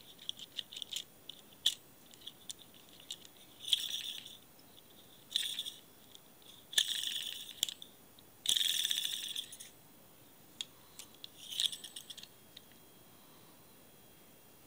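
A small 1920s German brass centrepin fishing reel handled and its spool turned by hand. First come scattered single metallic clicks, then about five short bursts of fast metallic clicking and rattling as the spool spins, the longest about a second.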